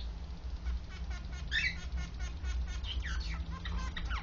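Zebra finch singing: a fast run of short, evenly repeated clicking notes broken by several downward-sliding chirps. A steady low hum lies underneath.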